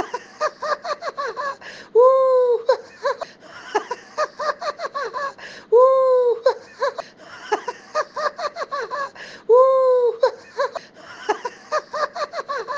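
A high-pitched voice repeating a long falling "oh" followed by a rapid string of "no, no, no", over and over about every four seconds, in a laughing, teasing tone.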